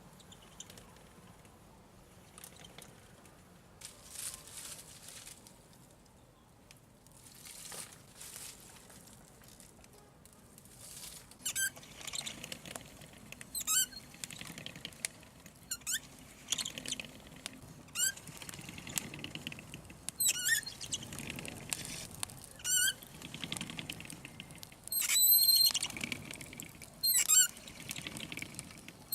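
A series of short, high-pitched squeaks with a wavering pitch, about one every two seconds, starting roughly a third of the way in. Before that there is only faint rustling.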